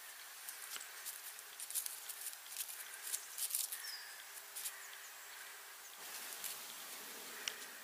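Irregular light crackling and rustling in dry leaf litter, with a short high chirp about four seconds in.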